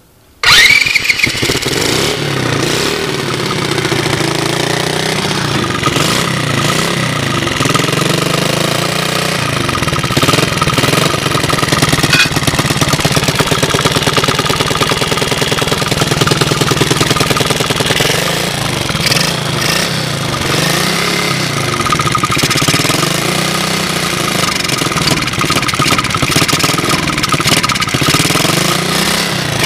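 A 70cc Chinese quad's small Honda-clone engine starts on its electric starter about half a second in, on choke, then runs steadily, its revs rising and falling a few times under the throttle. It is firing on a newly fitted pit-bike CDI ignition and sounds halfway decent.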